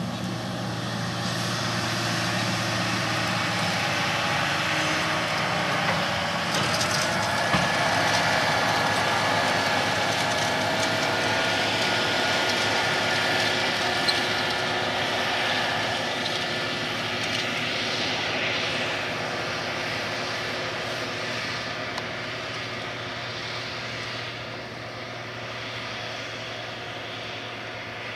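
Case IH Quadtrac 580 tracked tractor's diesel engine running under load as it pulls a wide cultivator through stubble, with a whine over the engine noise. It grows louder as the tractor draws near, then fades in the second half as it moves away.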